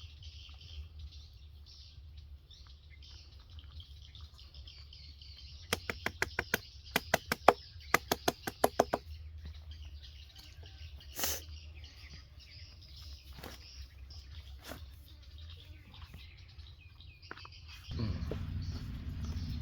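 Faint high chirping over a low steady hum, broken about six seconds in by a quick run of about a dozen sharp knocks; a louder rumbling noise starts near the end.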